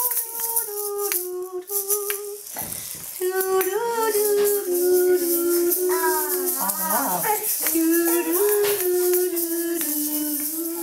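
Egg shakers rattling as toddlers shake them, under a voice singing a simple tune in held notes that step up and down. A child's voice briefly wavers in about two-thirds of the way through.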